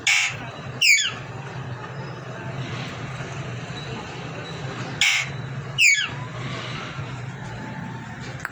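Pet parrot squawking: two pairs of short, sharp, high calls about five seconds apart, each pair a harsh screech followed by a quick falling call.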